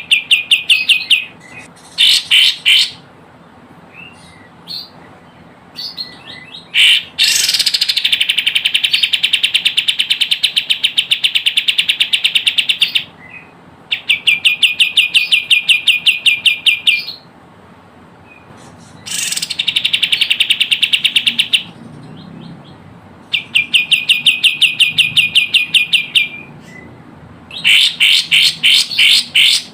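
Kapas tembak (cream-striped bulbul) calling in bouts of rapid, evenly pulsed chattering trills, about eight notes a second. The bouts last from one to about six seconds, with short pauses between, the longest about a quarter of the way in.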